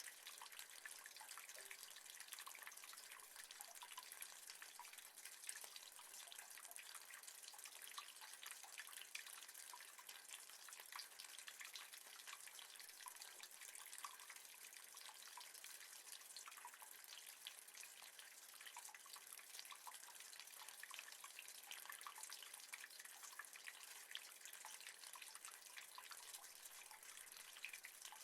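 Rain falling on metal: a faint, steady hiss made of many small drop taps, with no change in intensity.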